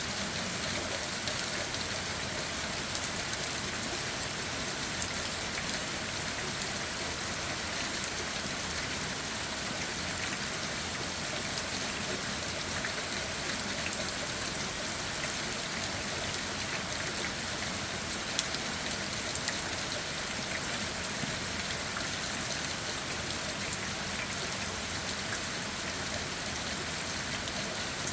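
Steady rain falling on leaves and ground, an even hiss with many small scattered drop taps.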